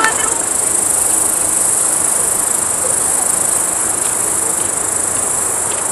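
Insects chirping in a steady, high-pitched chorus.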